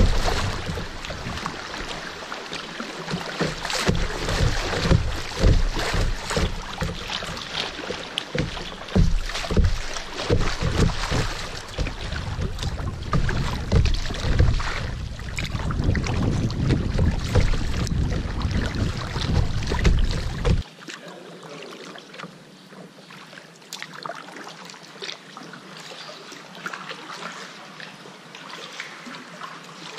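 Water rushing and splashing around a kayak's bow as it runs through shallow riffles, with many sharp splashes. About two-thirds of the way through it drops suddenly to a much quieter wash of calmer water.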